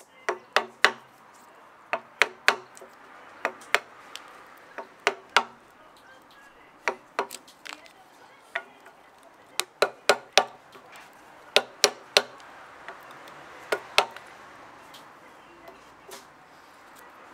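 Steel-headed Japanese hammer (genno) striking the handle of a Japanese chisel (nomi) chopping into a Hinoki (Japanese cypress) beam: sharp knocks in quick groups of two to four. Past about 14 seconds the strikes stop, leaving only a few faint taps.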